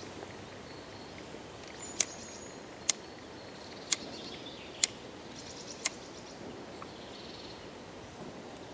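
Five sharp knocks, about one a second, over a steady outdoor background with faint bird chirps.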